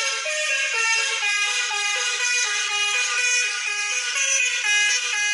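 Car-horn honks played as a melody in short notes that step up and down in pitch, opening a pop song; the sound is thin, with no low end.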